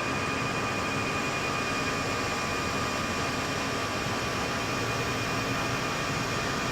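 Airbus A320-family airliner's engines at flex takeoff thrust during the takeoff roll, heard inside the flight deck. A steady rushing noise with a few faint steady whining tones.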